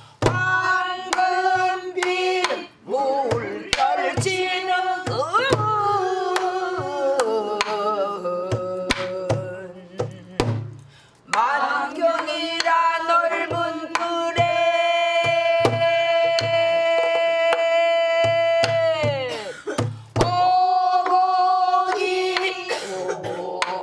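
A woman sings a Korean folk-style song, accompanying herself on a buk barrel drum: deep strokes on the drumhead and sharp stick clicks on the drum keep the beat. In the second half she holds one long note for about seven seconds, ending in a downward slide.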